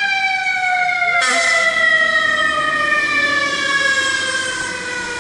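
Fire truck siren sounding one long tone that slides steadily lower in pitch.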